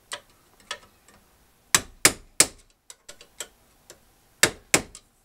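Irregular sharp metal taps, about a dozen, the loudest coming in quick pairs and threes: a screwdriver being tapped to drive a small horseshoe retaining clip onto the parking-brake lever pin of a drum brake shoe clamped in a vise.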